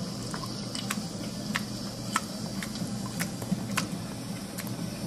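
A ginger cat licking another cat's fur close to the microphone: sharp, irregular wet tongue clicks, one or two a second, over a steady low hum.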